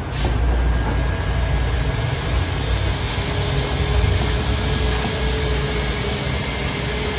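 Driveshaft balancing machine spinning a driveshaft. It starts up at the beginning and runs steadily as a low mechanical hum, with a faint whine that rises slightly in pitch. The freshly straightened shaft runs true enough that it needs no balance weight.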